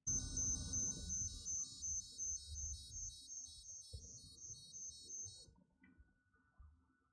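Electronic sound effect: high, evenly pulsing beeps about three a second over a low rumble, cutting off about five and a half seconds in.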